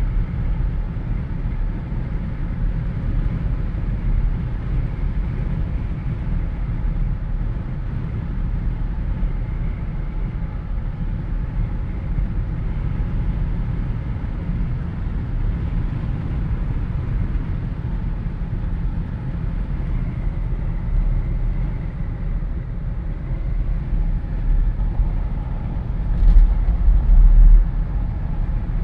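Wind rushing in through the open windows of a moving Jeep Wrangler, a steady deep rumble with road noise underneath. It swells louder for a moment a couple of seconds before the end.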